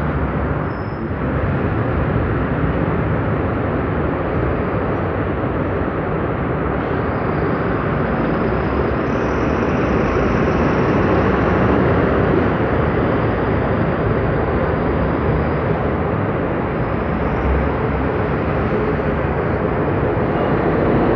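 Steady, fairly loud street traffic: city buses and cars driving past through a busy junction, their engines and tyres blending into one continuous noise.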